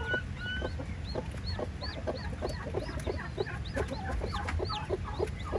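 A newly hatched chick peeping in short high chirps, about three a second, while the broody hen clucks in repeated low calls.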